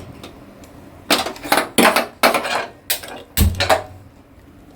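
Metal kitchenware clattering: a quick run of about seven clanks and knocks with brief ringing, the heaviest a dull thump about three and a half seconds in.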